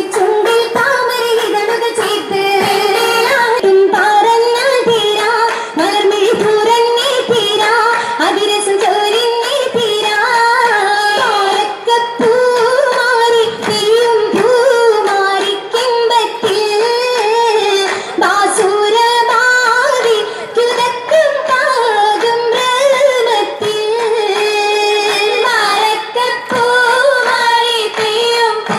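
Oppana: girls' voices singing a Mappila song together to rhythmic hand-clapping.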